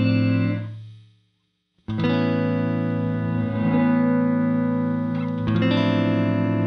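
Clean electric guitar chords played through an Empress Reverb pedal set to its reverse-and-stop reverb. A ringing chord fades away to silence about a second in. A new chord strikes suddenly just under two seconds in and sustains, and another chord follows about five and a half seconds in.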